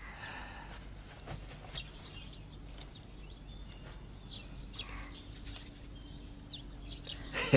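Small birds chirping and twittering in short, scattered calls over a faint steady background hiss. A brief, sharp, louder noise comes near the end.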